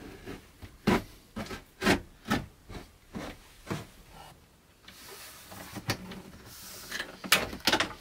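Irregular knocks and clunks from hands and tools working on an RV refrigerator's doors and trim, with a stretch of rubbing about five seconds in.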